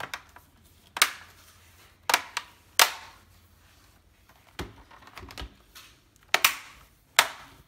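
Dell Inspiron 15 5000 laptop's bottom cover clips snapping into place as the cover is pressed down along its edges: about seven sharp clicks at irregular intervals.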